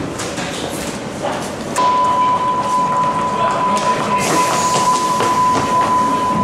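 Hamburg U-Bahn door-closing warning signal: a steady high beep that starts a couple of seconds in and holds, over the rumble and knocks of the train standing at the platform.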